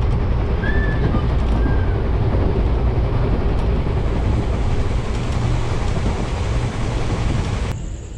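Indian Railways express train running along the track: a loud, steady rumble of wheels and coach, heaviest in the low end. Near the end it drops abruptly to a much quieter background with crickets chirping steadily.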